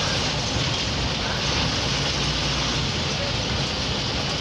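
Interior noise of an MSRTC state-transport bus under way, heard in the driver's cabin: a steady low diesel engine drone under an even rush of road and wind noise.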